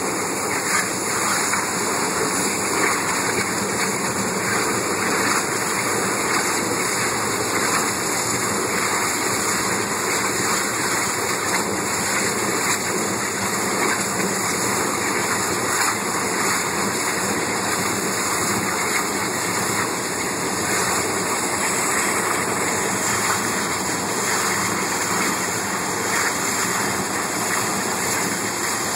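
Steady rushing noise of a burning propane tank's jet of flame together with the fire hose streams of water sprayed onto it.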